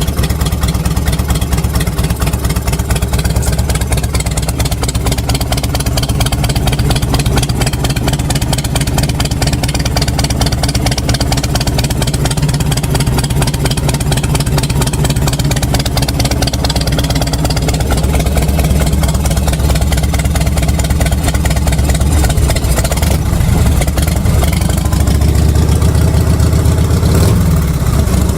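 A 1983 Harley-Davidson 1340cc Shovelhead V-twin engine idling with a steady, loud, pulsing beat. Near the end the engine speed changes briefly.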